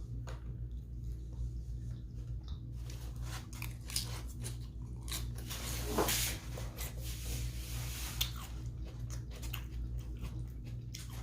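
Close-miked chewing: many short, sharp mouth clicks and smacks, thickest from about three seconds in, with one stronger at about six seconds, over a steady low hum.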